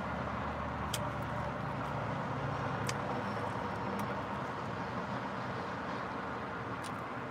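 Steady background rumble with a few short, sharp clicks and smacks from eating a roasted chicken drumstick.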